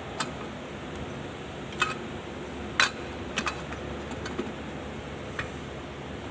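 A handful of sharp, irregular metallic clicks and knocks as a socket on a long extension bar is fitted and worked against a tractor's drive case, the loudest about three seconds in, over a steady low background hum.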